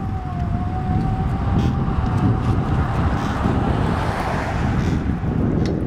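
Truck-mounted crane lifting a granite post: a steady motor whine that fades out about two seconds in, over a continuous low rumble, with a rushing noise swelling and fading in the middle.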